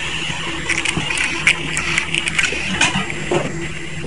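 LT-500C selective soldering machine running with a steady hum, with a scatter of sharp clicks and crackles through the middle.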